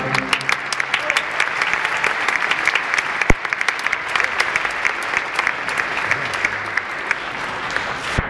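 Audience applauding steadily: a dense mass of many hands clapping, with one dull thump about three seconds in.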